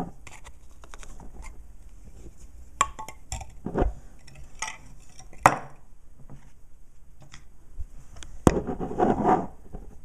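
Scattered clinks and taps of a metal espresso filter basket from a Mr. Coffee ECMP50 being handled, the loudest about halfway through and again near the end. A dog makes a brief sound near the end.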